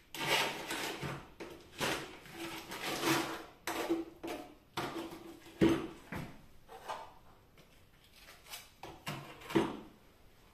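Plastering trowel scraping and knocking against a container or board while plaster is loaded: a string of short scrapes and clacks, some with a faint ringing note, the loudest a sharp knock in the middle.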